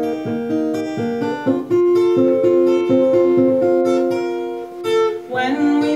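Acoustic guitar playing solo: notes picked one after another and left ringing as a repeating chord pattern, the chord changing about a second and a half in and again near the end.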